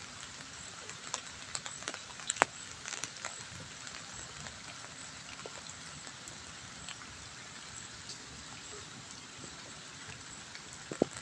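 Light drizzle falling on a wet road and into puddles: a steady patter with scattered drip ticks. A few sharper ticks stand out about two to three seconds in and again near the end.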